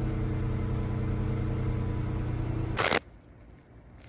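Chrysler 200's 3.6-litre V6 idling steadily after an oil change, then a sharp clunk a little under three seconds in as the engine sound cuts off.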